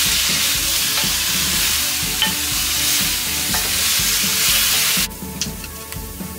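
Shredded cabbage, carrots and green onion sizzling in a hot metal pan as they are stirred with a wooden spoon. The sizzle cuts off suddenly about five seconds in, and a few light knife taps on a wooden chopping board follow.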